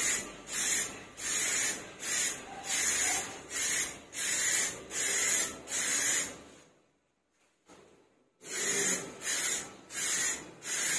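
Aerosol spray can hissing in short bursts, about two a second, as clear top coat is sprayed onto a helmet shell. The bursts stop for nearly two seconds about two-thirds of the way through, then start again.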